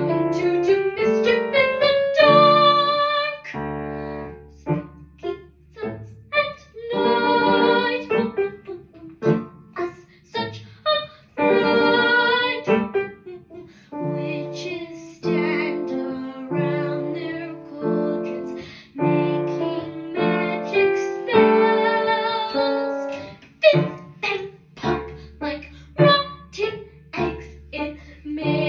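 A girl singing a song with piano accompaniment, holding several long notes with a wavering vibrato.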